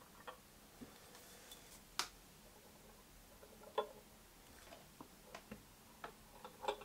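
Faint, scattered sharp clicks and light knocks, about one every second or so, from unhooking small cast-iron weight plates and their cable-tie loops from 3D-printed plastic hooks.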